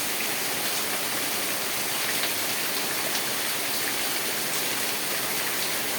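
Steady rain falling, an even hiss with scattered drops ticking through it.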